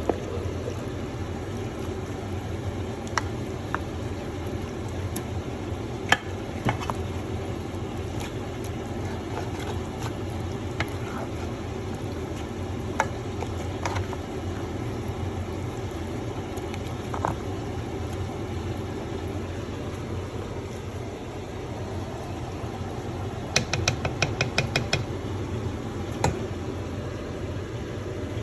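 Pot of egusi soup simmering with a steady bubbling hiss, with scattered clinks of a spoon against the pot and a quick run of taps near the end.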